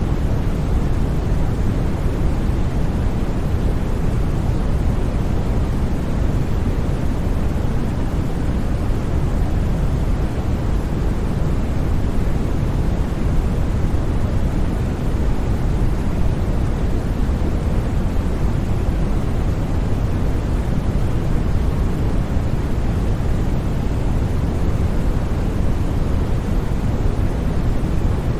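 Continuous, unchanging noise from a white-noise sleep track, with no breaks or sudden sounds. Most of its weight is in the low end, so it sounds like a deep, even rush rather than a thin hiss.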